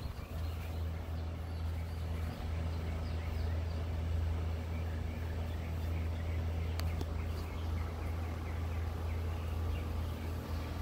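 Backyard ambience: a steady low hum under many small, short bird chirps.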